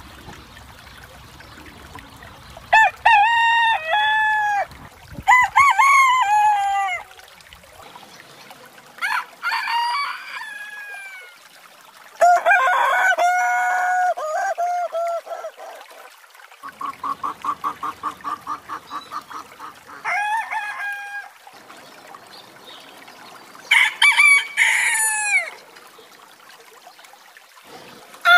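Several roosters crowing one after another: about six separate cock-a-doodle-doo crows, each one to three seconds long, with short gaps between them. Partway through comes a rapid run of about a dozen short, evenly spaced calls.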